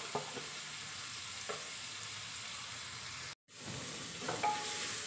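Sliced onions sizzling as they fry in hot sunflower oil in a pressure cooker, with a few light clicks of a wooden spatula stirring them. The sound cuts out for a moment about three and a half seconds in, then the sizzling and stirring go on.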